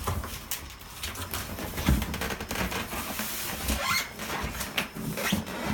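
Cardboard box and styrofoam packing scraping, squeaking and rustling as a heavy boxed sewing machine is turned and worked loose, with a few dull thumps, one about two seconds in and another near the end.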